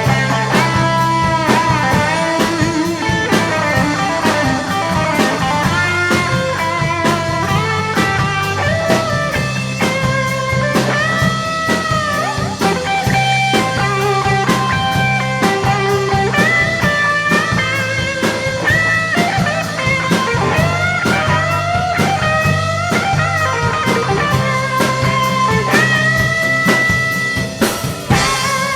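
Rock band playing an instrumental break: a lead guitar line with bending notes over bass and drum kit.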